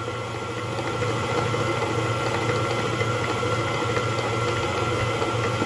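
Electric mixer running steadily, its beater working through soft butter biscuit dough for a final quick mix after the milk goes in. The motor's hum gets a little louder about a second in.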